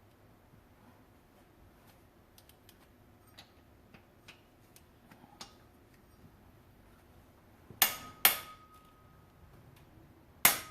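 Torque wrench tightening engine bolts to 45 on the final torque pass: faint ticks, then three sharp clicks about eight and ten and a half seconds in, two of them followed by a brief ringing tone.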